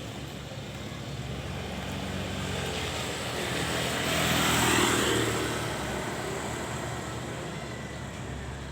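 A motor vehicle passes close by, growing louder to a peak about halfway through and then fading, its pitch falling as it goes past. Under it a steady low engine hum carries on.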